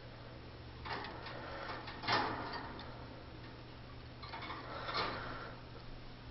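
Soft clicks and scrapes from pet birds moving about their cage, a few short sounds at irregular moments over a steady low hum.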